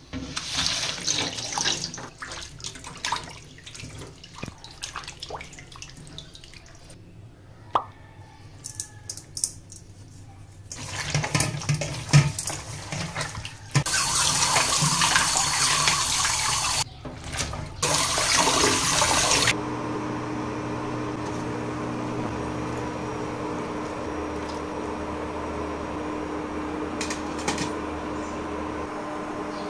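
Wet raw pork mesentery squelching as it is kneaded and rubbed with salt in a stainless steel basin, then tap water running hard onto it for several seconds. Near the end the water stops and a steady electric hum takes over as the pot heats on the cooker.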